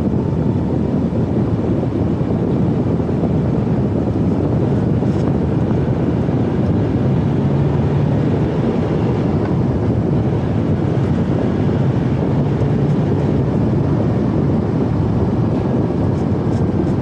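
Inside a semi-truck's cab while driving: the diesel engine running and road noise, steady throughout.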